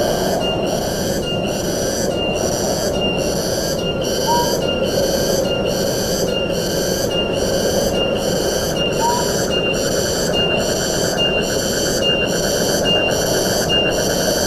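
Tropical forest ambience: a pulsing insect chorus beating about one and a half times a second over a steady rush of wind, with a short rising bird note every five seconds or so.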